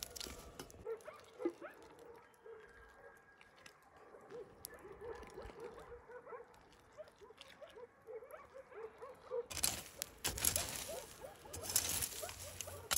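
Hot cooking oil sizzling loudly in a pot as food deep-fries, starting about nine seconds in. Before that, a run of short squeaky animal calls, two or three a second, over a low sizzle.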